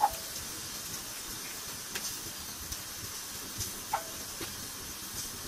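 Fiddlehead fern stalks being picked over and snapped by hand: a few short sharp snaps, the loudest at the start and others about two and four seconds in, over a steady faint hiss.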